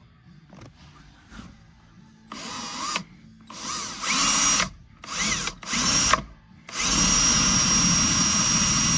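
Power drill boring pilot holes through the car's floor pan: several short bursts of drill whine, then one long steady run of drilling near the end.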